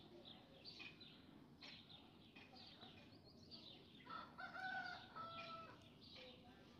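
Faint birdsong: small birds chirping on and off, and about four seconds in a longer, louder bird call lasting under two seconds, stepping down in pitch.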